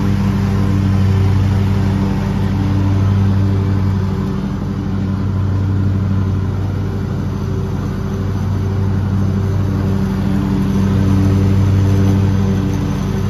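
Lawn mower engine running steadily while cutting grass, a constant low hum whose loudness gently swells and eases.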